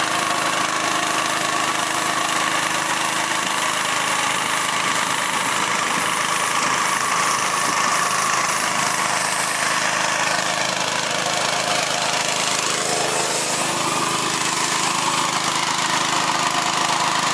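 Small engine of a crop-spraying rig running steadily at constant speed, driving the pump that feeds the spray lance.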